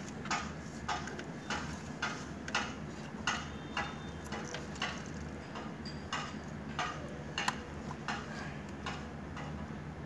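A series of light, sharp clicks, roughly one every half second and unevenly spaced, from wires and plastic connectors being handled and fitted at the PCB's terminals. Under them runs a steady low hum.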